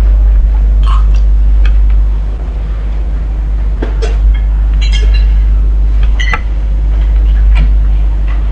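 Spoons and forks clinking against plates in a few scattered, light taps while two people eat, over a loud, steady low hum.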